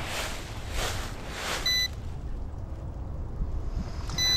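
Short electronic warning beeps from a radio-control helicopter setup, repeating about every two and a half seconds, typical of a low-battery alarm. At first they come over a pulsing rushing noise that stops about halfway, and a low rumble runs underneath.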